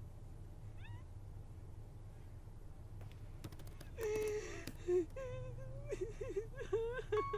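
Several wavering cat-like cries in a row, starting about four seconds in, over a low steady hum. A few sharp clicks come just before them.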